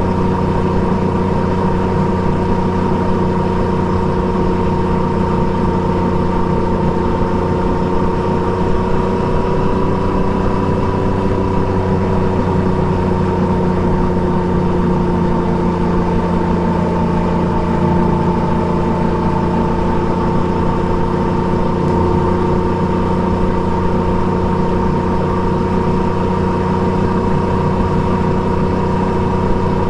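Triumph Trident 660's inline three-cylinder engine, fitted with an Akrapovic exhaust, running at a nearly constant engine speed. Its pitch sags slightly in the middle and recovers, over a steady low rumble.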